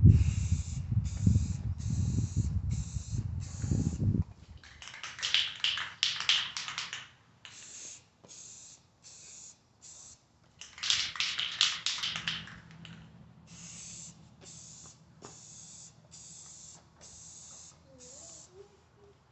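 Aerosol can of Rust-Oleum trim and bumper paint spraying in short hissing bursts, about a dozen of them, each under a second, with two longer, crackly stretches of spray about five and eleven seconds in. A low rumble sits under the first four seconds and is the loudest part.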